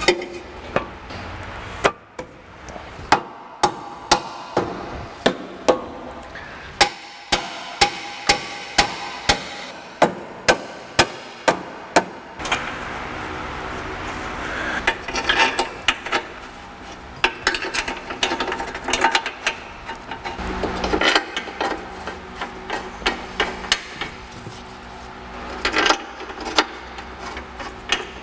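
Hand tools working on car parts: a steady run of sharp taps about one to two a second for the first ten seconds or so, then irregular clicks and scraping.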